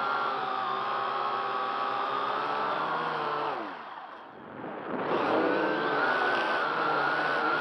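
Syma X8C quadcopter's motors and propellers whining steadily, heard through the onboard camera. About three and a half seconds in, the pitch falls away and the sound nearly dies as the throttle is cut to drop the drone. About a second later it climbs back up as thrust is added again.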